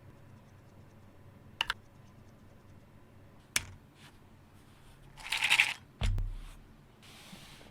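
Keyboard switch parts and tools being handled on a desk during switch lubing: two sharp plastic clicks, a short clattering rattle about five seconds in, then a dull thump just after.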